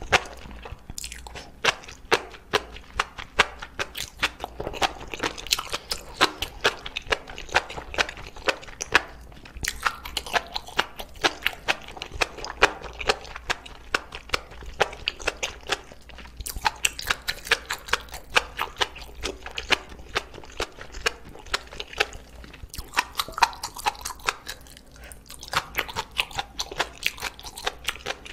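Close-miked chewing of a mouthful of enoki mushrooms in spicy sauce. It comes as a run of short clicks, several a second, with a few brief pauses.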